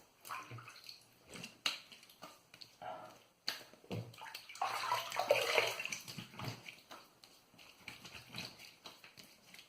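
Water splashing in a bathroom sink as cupped hands rinse shaving lather off the face, in irregular splashes with a fuller stretch of splashing about midway.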